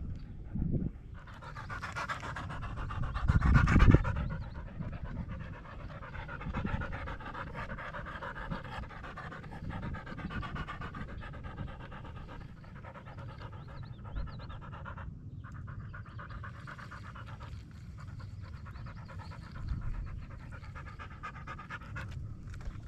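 A dog panting steadily, loudest around three to four seconds in.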